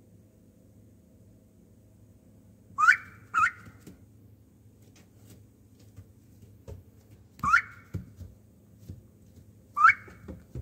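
A young duck, about five weeks old, giving short, rising whistled peeps: a quick pair, then two single peeps a few seconds apart, over a faint steady hum.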